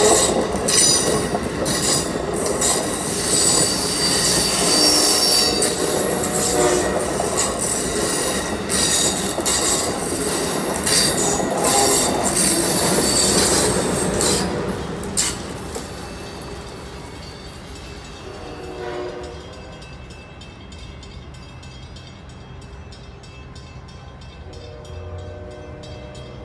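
Amtrak Acela Express trainset running past on steel rails: a loud rush of wheel and air noise with rapid clicks from the wheels on the track. The noise fades quickly after the last car goes by, about halfway through. Afterwards a faint, distant horn sounds twice, briefly.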